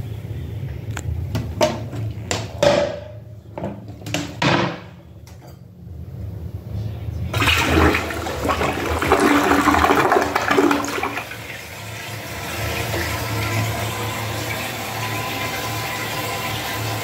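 Toto toilet flushing. A few sharp knocks and clicks come first. About seven seconds in, the flush rushes loudly for some four seconds, then eases into a steadier, quieter hiss of water as the toilet refills.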